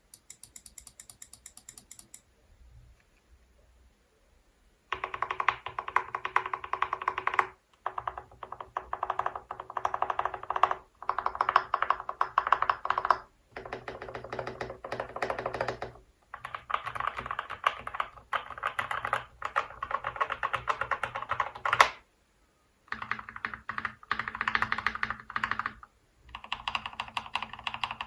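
Fast typing on a Keychron K8 tenkeyless mechanical keyboard with lubed and filmed Gateron Oil King linear switches, in bursts of two to three seconds with short pauses between them. About three quarters of the way in, after a pause of about a second, typing continues on a Keydous NJ68 65% keyboard with lubed TTC Ace switches on a brass plate, with a slightly deeper tone.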